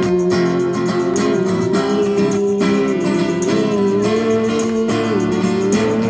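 A Christian worship song: an acoustic guitar strummed steadily with a voice singing long held notes, amplified through a small portable speaker.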